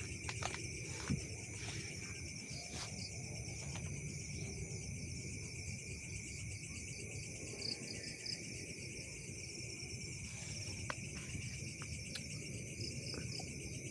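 Steady chorus of night insects chirping, high-pitched and continuous, with a few faint clicks.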